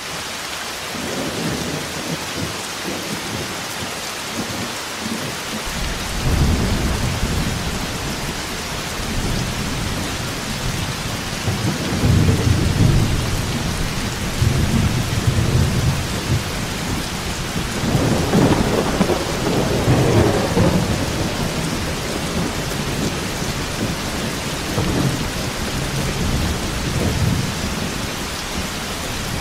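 Steady heavy rainfall hissing without a break, with thunder rolling over it several times; the rolls swell and fade, the longest and strongest about two-thirds of the way through.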